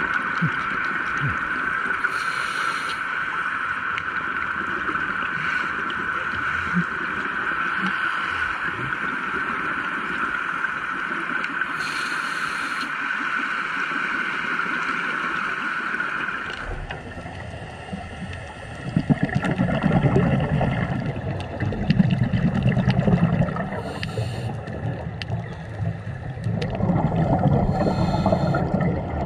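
Underwater sound of a scuba diver breathing through a regulator: a brief hiss on each inhale every several seconds, and gurgling exhaust bubbles. A steady high whine runs under it for the first half and stops about 17 seconds in.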